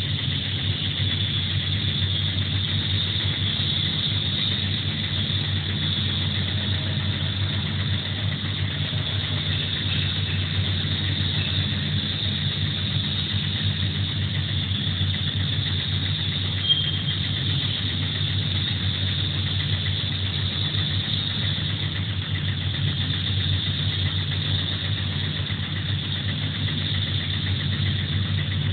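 A motor-driven machine running steadily: an even low hum with a high whine above it, unchanging in pitch and level.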